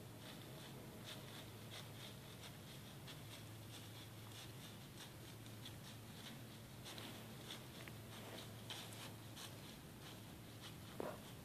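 Faint, irregular crunching and rustling in dry leaf litter, like steps through fallen leaves, over a steady low hum, with one sharper snap or knock near the end.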